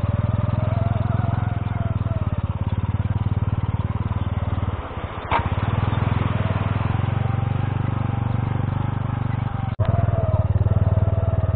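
Honda C70 step-through motorcycle's small four-stroke single-cylinder engine running steadily while riding over a gravel track, with a short dip about five seconds in and a brief dropout near the end.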